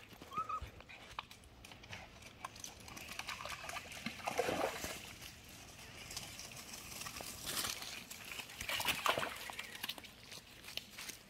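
Footsteps of a walker and small dogs crunching and clicking over stream-bed pebbles, with rustling swells as they brush through plants. A brief high squeak comes just after the start.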